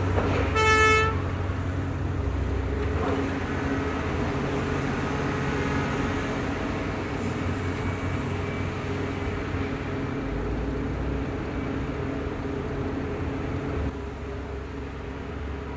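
Komatsu PC3000 hydraulic mining excavator's big diesel running steadily as the machine swings and tracks forward, after a short horn toot about half a second in. The engine drone quietens a little near the end.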